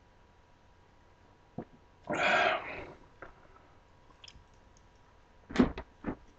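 A man drinking a can of Sprite fast: a loud, short breathy rush about two seconds in, and a cluster of sharp clicks and knocks near the end.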